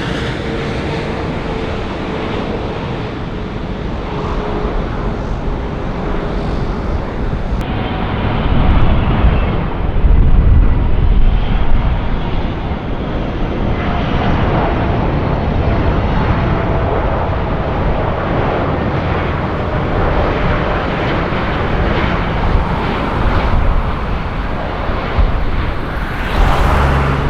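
Jet airliner's engines passing close by: a steady loud rush with a slowly falling engine whine, the low rumble loudest about ten seconds in.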